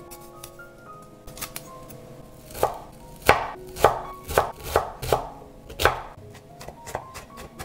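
Chef's knife chopping broccoli on a wooden cutting board. A few light cuts come first, then a run of about eight sharp knocks of the blade on the board from about a third of the way in, and lighter taps near the end.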